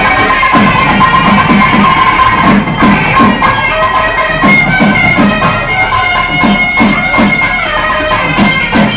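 Loud live festival music: drums beating a fast, steady rhythm with sharp metallic strokes, under held melodic notes that shift in pitch.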